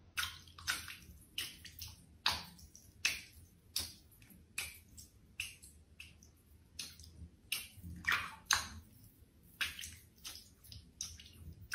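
A kitten pawing at shallow bathwater in a tub, making a series of small, irregular splashes, about one or two a second.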